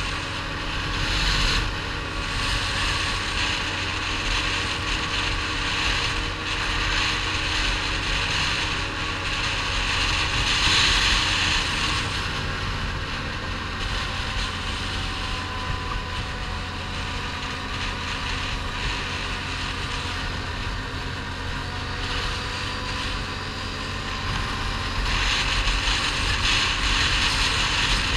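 ATV engine running steadily at cruising speed, heard from a camera mounted on the quad, with wind rushing over the microphone; the rushing swells about ten seconds in and again near the end.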